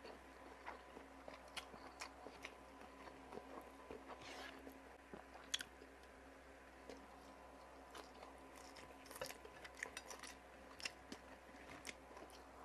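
A person chewing and biting up close, eating fried galunggong (round scad) and adobong kangkong: irregular small crunches and clicks, with one sharper crunch about five and a half seconds in.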